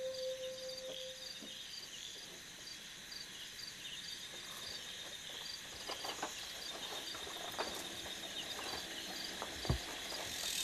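Crickets and other night insects chirping steadily in a fast, even pulsing. A held flute note fades out in the first second or two. Later come a few soft knocks and creaks of bare footsteps on a bamboo floor and a log ladder.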